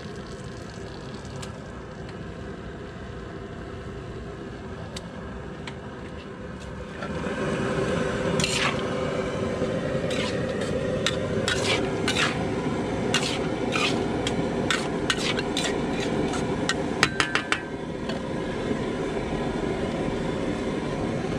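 Vegetables frying in a large wok. The sizzle turns louder about seven seconds in, then a metal spatula clanks and scrapes against the wok over and over, with a quick flurry of strikes near the end of the stirring.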